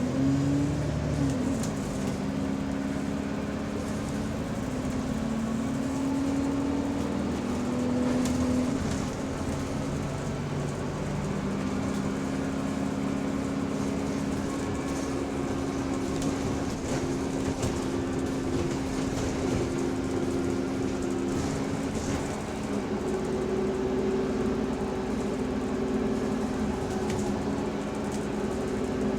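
Bus driveline heard from inside while under way: engine and transmission running with several steady tones that shift up and down in pitch as the bus changes speed. Among them is the subtle, odd noise the uploader puts down to the differential.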